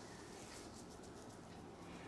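Faint rustling and soft scattered ticks of hands working through hair and over the scalp in a head massage.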